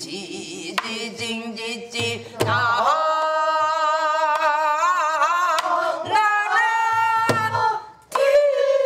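Pansori singing: a woman's voice holding long notes with a wide, slow vibrato and sliding pitch, accompanied by a few Korean drum strokes about two seconds in and again near the end.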